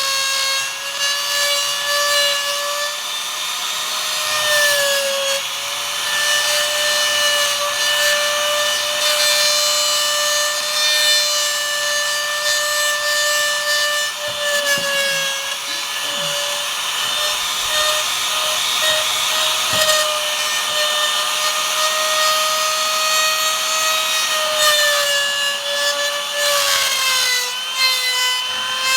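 Handheld trimmer router running at high speed, its straight bit cutting a mortise into wood. The steady motor whine dips in pitch now and then as it bites into the wood.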